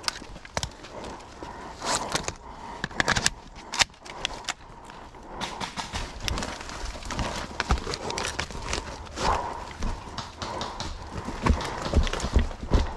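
A few sharp clicks and knocks from the airsoft rifle being handled during a magazine change, then a quick run of footsteps crunching and rustling through dry leaf litter and brush.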